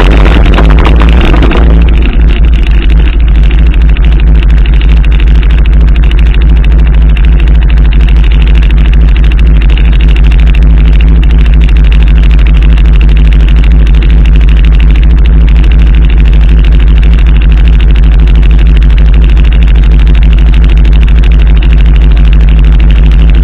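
ATV engine running steadily at low speed close to the microphone, a deep, even rumble with no revving. Music ends in the first two seconds.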